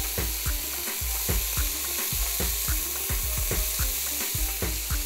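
Green peas and chopped sweet peppers sizzling in a hot nonstick frying pan, a steady hiss with quick crackling pops, about four or five a second.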